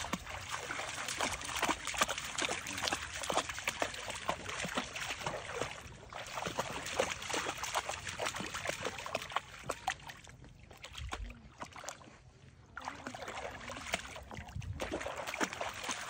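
Yellow Labrador wading through shallow lake water, its legs splashing over and over, with a quieter spell a little past the middle.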